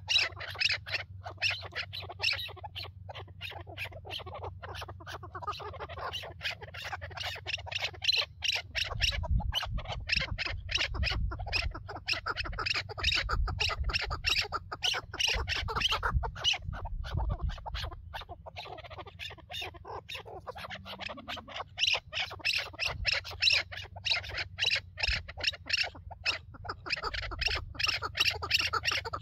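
Chukar partridges calling: long runs of rapid, repeated clucking notes, many each second, with only brief lulls.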